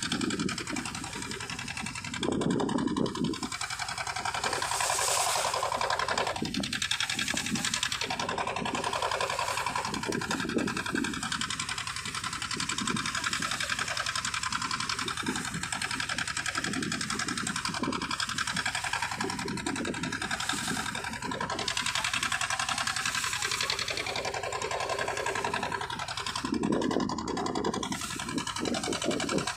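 Boat engine running steadily, a continuous mechanical drone.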